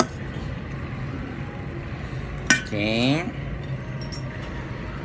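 Two sharp clinks of tableware on a plate, a light one at the very start and a louder one about two and a half seconds in, over a steady low hum.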